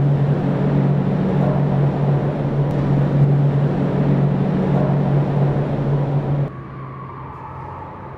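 Steady low mechanical hum with a rushing noise over it; it cuts off abruptly about six and a half seconds in, leaving a quieter hum with a faint higher tone.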